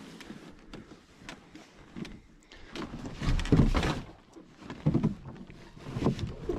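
Canoe hull being lifted and rolled over for carrying, heard through a camera mounted on the canoe: a run of knocks, clunks and rubbing handling noise. The heaviest clunk comes about three and a half seconds in, with smaller bumps around five and six seconds.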